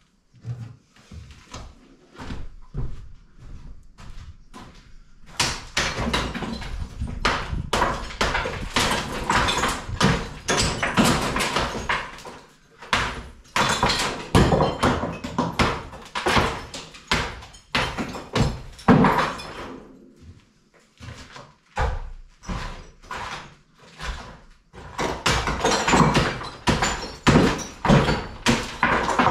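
Hand demolition of an old masonry wall: repeated heavy blows on stone and plaster with clattering rubble. A few scattered knocks come first, then dense, rapid strikes from about five seconds in, broken by short pauses.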